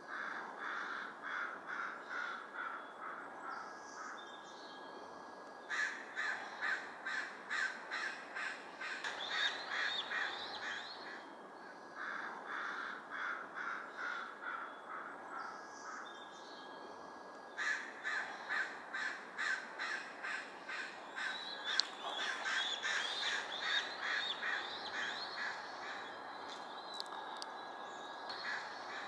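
Crows cawing in four long runs of harsh, evenly repeated caws, about two a second, with short pauses between runs.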